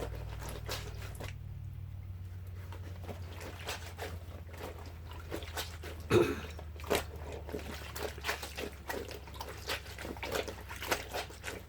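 Wet clothes being scrubbed by hand with bar soap: irregular squishing and rubbing of soapy fabric with water dripping, and one louder slap about six seconds in. A steady low hum runs underneath.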